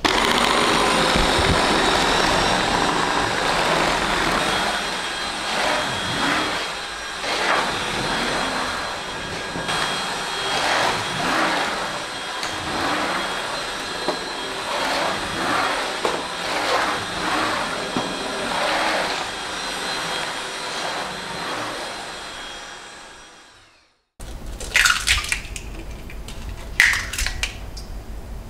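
Vacuum cleaner running over a wooden floor: a steady motor whine that swells and dips as it is moved, then fades out. Near the end come a couple of light clinks on a glass bowl.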